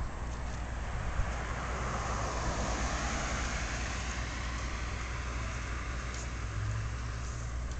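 Street traffic: a steady low engine hum under tyre and road noise, with a vehicle passing that swells about two to three seconds in and fades.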